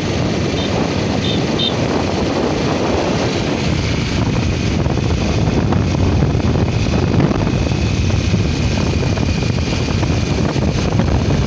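Wind rushing over the microphone of a moving motorbike, with the bike's engine running under load as it climbs a hill road. A faint steady high whine joins about four seconds in.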